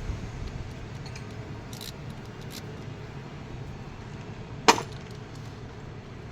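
Metal objects clinking: a few light taps, then one loud sharp clink with a brief ring about three-quarters of the way through, over a steady low hum.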